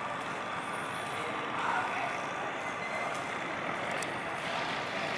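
Steady drone of river barge engines running, with no sudden sounds.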